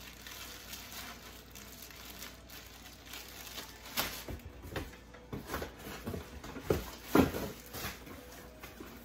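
Plastic packaging crinkling and rustling as it is handled, with a string of short rustles and a few louder thumps in the second half, the loudest about seven seconds in.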